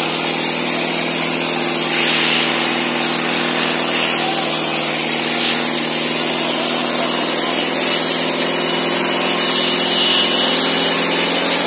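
Sonalika 750 tractor's diesel engine running hard and steady under heavy load, with the hiss of its rear tyres churning dry soil; it gets a little louder about two seconds in.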